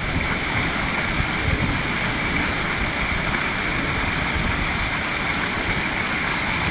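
Garden pond waterfall: water pouring steadily over rocks into the pond, an even, unbroken rush of splashing.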